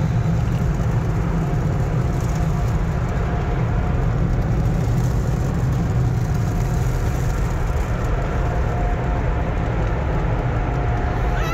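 Automatic car wash equipment running, heard from inside the car: a steady rushing noise over a low rumble.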